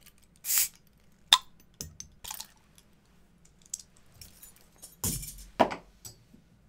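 Glass beer bottles being opened with a bottle opener: sharp metallic clinks of the opener on the crown caps and short hissing bursts as the caps release, twice with a louder hiss, about half a second in and again about five seconds in.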